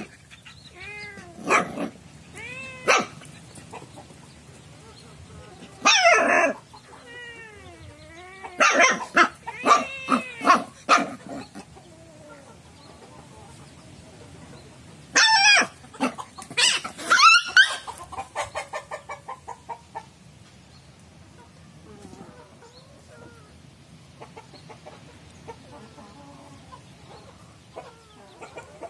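Several clusters of short, rising-and-falling animal cries with sharp noisy onsets, separated by quieter stretches. The last cluster trails off into a run of quick, evenly spaced pulses, and the last third is quiet.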